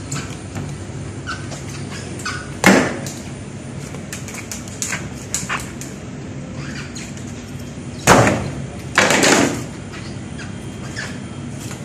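A large grouper being handled on a plastic cutting board: a few heavy thuds and slaps as the fish is lifted and turned, loudest twice near the end, with small wet knocks in between, over a steady mechanical hum.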